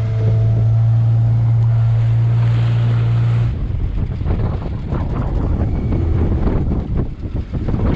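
Small fishing boat's engine running with a steady low hum, which stops abruptly about three and a half seconds in. After that, strong wind buffets the microphone over the sound of waves.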